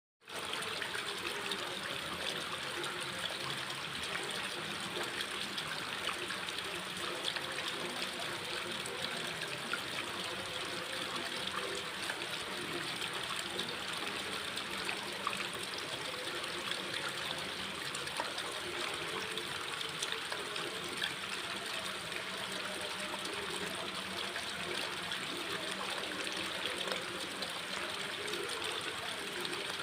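Running water splashing and trickling steadily, with many small splashes.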